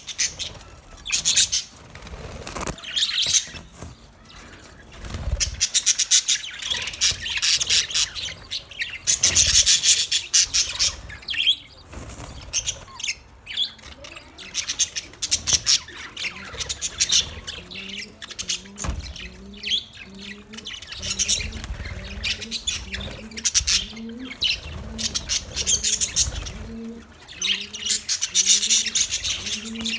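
Parrots chirping and squawking in dense clusters of quick high notes, coming and going in loud bouts. From about halfway through, a low rising note repeats about once a second underneath.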